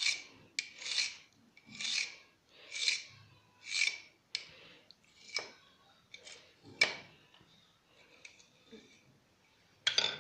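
Kitchen knife cut through rolled-out maida dough and scraping across the rolling board, stroke after stroke. The strokes come about once a second at first, then more sparsely and fainter, with one sharp, loud stroke near the end.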